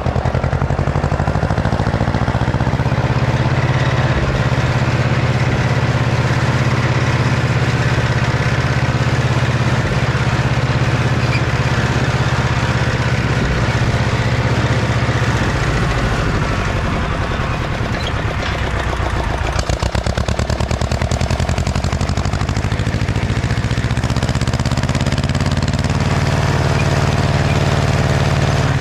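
Two-cylinder diesel engine of an Ursus C-335 tractor running steadily under load while pulling a disc harrow. The engine note shifts briefly about two-thirds of the way through, then settles again.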